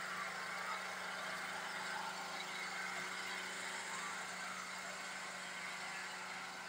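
A steady mechanical hum under an even hiss, unchanging throughout.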